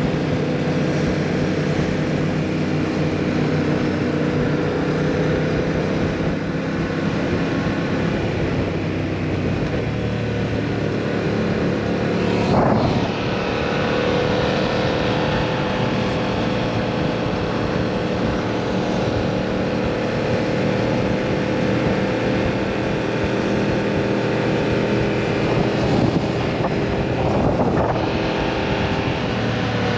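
2022 Yamaha MT-07's 689 cc parallel-twin engine and exhaust running at a steady engine speed while riding. About midway, and again near the end, a short sharp rise and fall in pitch breaks the steady tone.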